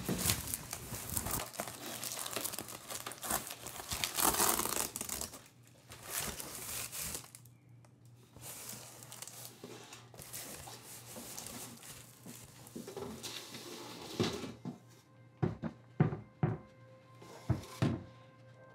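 A cardboard box being opened by hand: tape and packing tearing and paper crinkling in repeated bursts. Several short knocks come near the end.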